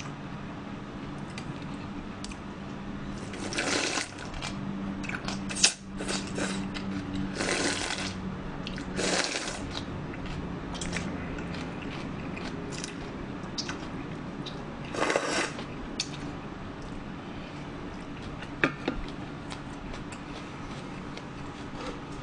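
Eating sounds: slurping from a stainless steel bowl of cold young-radish kimchi noodles (yeolmu naengmyeon) in several short bursts, with chewing between them. A few sharp clinks of a metal spoon against the bowls.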